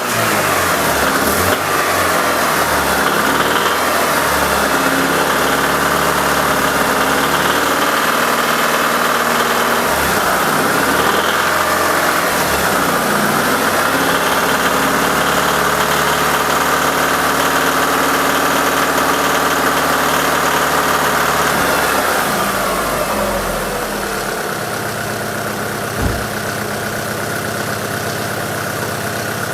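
Alfa Romeo 166's 2.0 Twin Spark four-cylinder engine running at a raised speed, then dropping to a lower idle about 22 seconds in, after freshly refitted valve-gear parts; the knock under test is still there, which the mechanic puts down to the engine's internals, possibly the oil pump or pistons. A single short knock sounds near the end.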